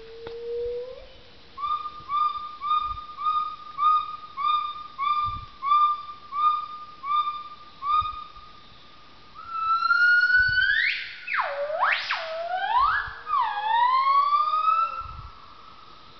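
Wild gibbon calling: a run of about a dozen short, evenly spaced hoots, each with a slight upturn in pitch, then louder whooping notes that sweep steeply up and down and fade out near the end.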